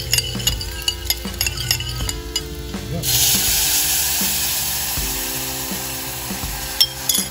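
Light clinking and stirring over frying potatoes, then about three seconds in a sudden loud sizzling hiss as a soy-sauce braising liquid is poured into the hot oil of a stainless saucepan, slowly dying down. Background music plays underneath.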